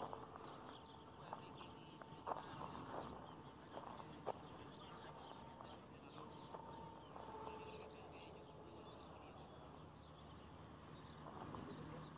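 Faint outdoor ambience of insects and birds chirping in the distance, with a faint steady whine that comes and goes a few times and a few soft clicks.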